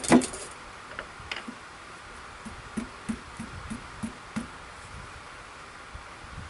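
Two sharp knocks, then a run of light taps about three a second, as a pointed awl is pressed and tapped into the end grain of a wooden handle blank to mark a new pilot hole.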